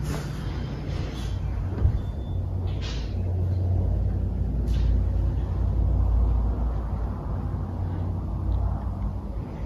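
A low rumble that swells from about three seconds in and eases off near the end, with a single sharp click early on and a couple of brief rustles.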